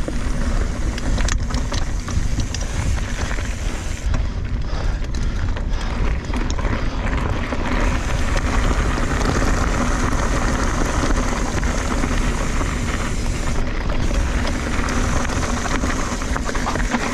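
Kona Honzo hardtail mountain bike descending a dirt singletrack. Wind buffets the chest-mounted camera's microphone, the tyres rumble over the dirt, and the bike clicks and rattles over bumps.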